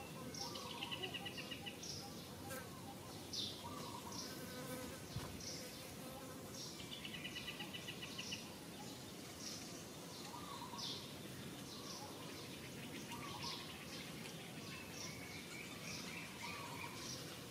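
Outdoor ambience of birds calling: short, high chirps repeated every second or so, with a few rapid trills about a second in, near the middle and near the end.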